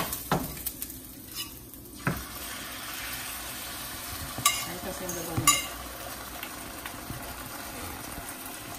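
Spinach and tomato frying in hot oil in a nonstick skillet, a steady sizzle. A dish knocks against the pan a few times, loudest twice about halfway through.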